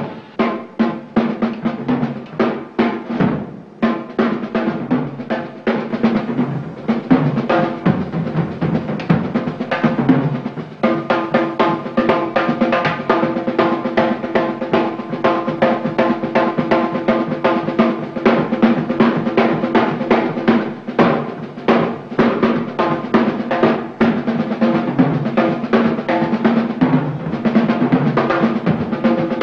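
Drum kit played in a fast solo: rapid, dense strokes on snare and toms with bass drum hits. From about a third of the way in, steady held notes sound underneath.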